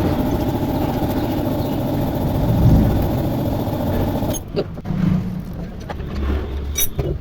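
An engine running steadily, which cuts off suddenly about four seconds in; after that it is quieter, with a few sharp clicks and knocks.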